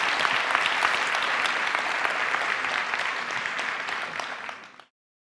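Audience applauding: a dense patter of many hands clapping that fades away and stops shortly before the end.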